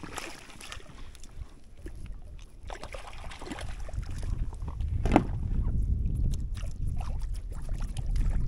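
Water splashing and sloshing around a small fishing boat, with a low rumble building from about four seconds in and a single knock a little after five seconds.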